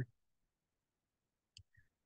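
Near silence, with one faint click from a computer mouse about one and a half seconds in.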